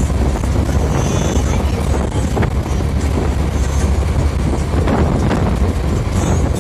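Bus engine droning steadily while cruising at highway speed, with wind and road noise, heard from inside the driver's cabin.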